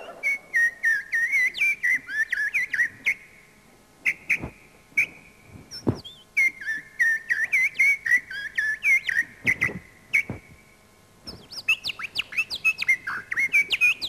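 A man whistling an imitation of a Japanese nightingale's song into a microphone: fast warbling phrases of quick rising and falling chirps and trills. The song breaks off briefly about three seconds in and again around ten seconds in, then resumes.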